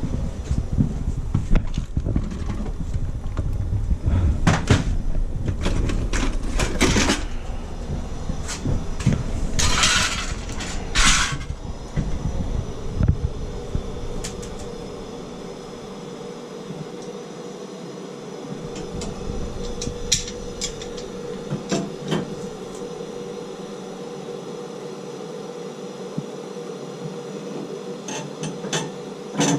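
Gas torch flame running while copper plumbing at a shower valve is heated, with scattered metal clinks and knocks. The low rumble drops away about halfway through, and a run of quick taps begins at the very end.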